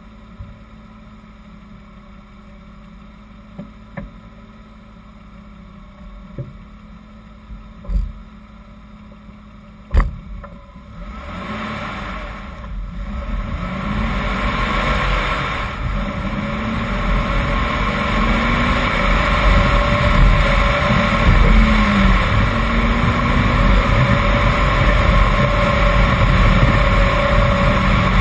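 A few knocks against a quiet background. Then, about eleven seconds in, the BMW 328i's straight-six engine pulls away and accelerates hard uphill, its pitch rising and dropping again through the gear changes, over tyre and road noise.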